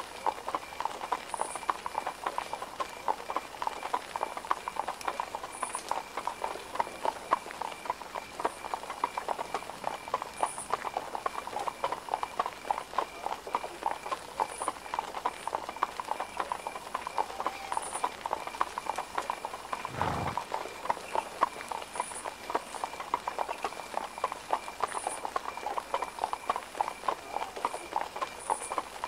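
Steady clip-clop of hooves on hard ground, a continuous run of small knocks, with a single low thud about twenty seconds in.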